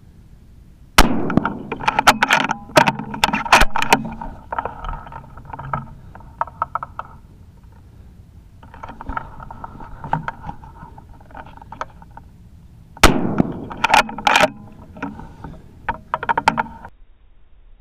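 Two rifle shots, the first about a second in and the second about thirteen seconds in, each a sudden loud crack. Each shot is followed by a quick run of sharp metallic clicks and rattles, with softer scattered clicks in between.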